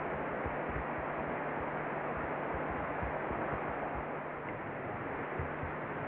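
Steady outdoor noise: an even hiss with a low hum and irregular low thumps running through it.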